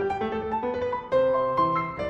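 Background piano music: a melody of separate notes.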